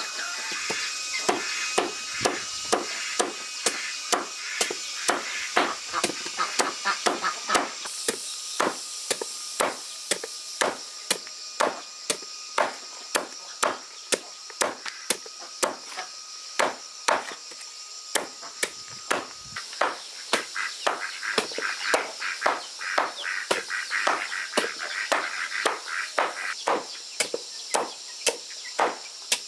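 Repeated chopping strokes with a blade, about two a second and fairly even, over a steady high hiss.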